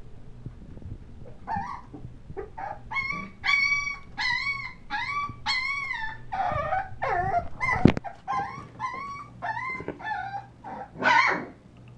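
Puppies whining and yipping: a run of short high-pitched cries, each rising and falling in pitch, about two a second, with a sharp click about eight seconds in and a louder cry near the end.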